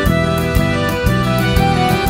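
Background music with a steady beat, about two beats a second, under a sustained melody.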